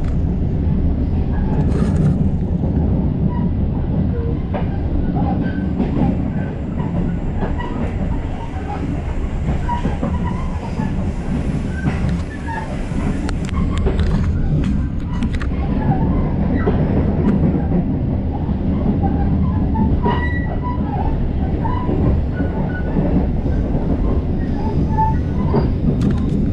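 KA Serayu passenger train running along the track: a steady rumble of wheels on rail, with scattered short clicks and brief squeaks from the running gear and coach.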